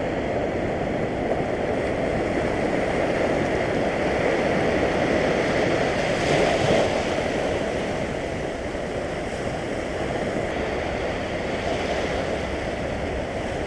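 Sea waves surging and washing over low shoreline rocks, one wave breaking into foam about six seconds in, the loudest moment, then draining back.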